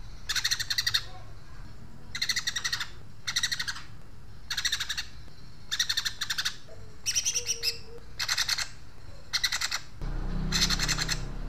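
Cucak ijo (green leafbird) singing harsh, rapid sparrow-like chatter (crecetan gereja) in short bursts of quick notes, about one burst a second.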